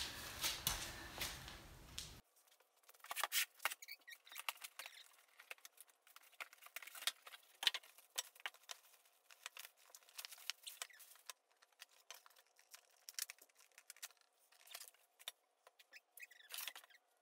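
Faint crinkling and rustling of plastic packaging, with many quick crackles and light taps, as a new radiator is pulled from its box and plastic bag and set down.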